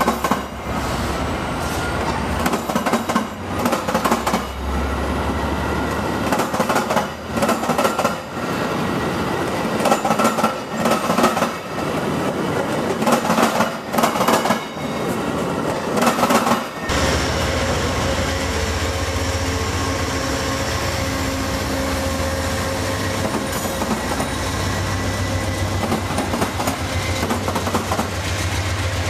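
Metra bilevel commuter coaches rolling past, wheels clicking over the rail joints. About 17 seconds in it changes abruptly to an Amtrak train departing, a steadier low rumble with a hum as its coaches roll by.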